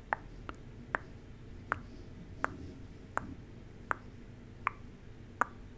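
Soft mouth clicks close to the microphone, made at an even pace of about one every three-quarters of a second.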